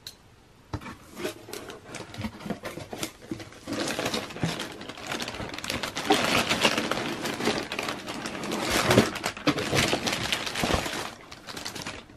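Thin plastic bag crinkling and rustling as hands handle it inside a cardboard box. Scattered clicks and rubs come first, then dense crinkling from a few seconds in until near the end.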